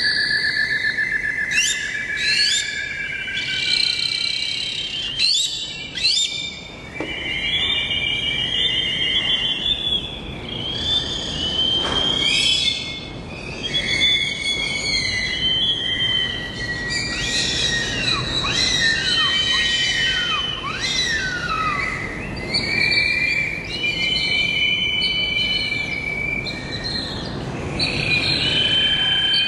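Several birds calling and singing at once: overlapping chirps, trills and whistles, with a long wavering whistle at the start and a run of quick downward-sweeping calls about two-thirds of the way through.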